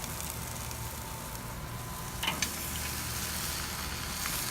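Soaked apple wood chips sizzling steadily on hot charcoal in a smoker, with a faint click or two a little over two seconds in.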